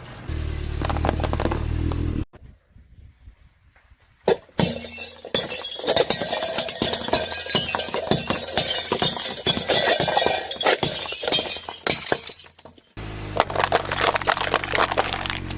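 Dense crackling and breaking sounds in several abruptly cut segments, with a low steady hum under the first and last, and a near-quiet gap of about two seconds early on.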